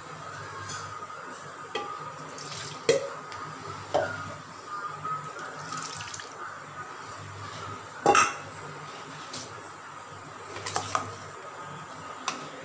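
Cooked lentil water pouring from a vessel into a metal kadai of sautéed vegetables, with clinks and knocks of metal on the pan. The sharpest knock comes about eight seconds in.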